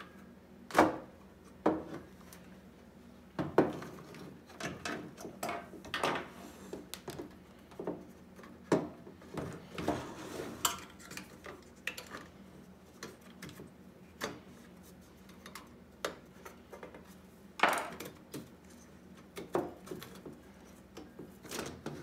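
Irregular metal clicks, scrapes and knocks of a screwdriver prying the retaining clips on a car radio head unit's sheet-metal case, with the unit now and then knocking against a wooden table. A few louder knocks stand out, about a second in, after three and a half seconds and near the end.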